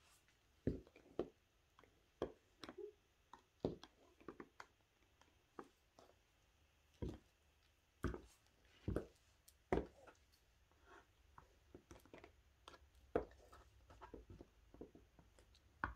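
Footsteps in 20 cm high heels: sharp, separate clicks at an uneven pace, often about a second apart, with a few pauses of two to three seconds.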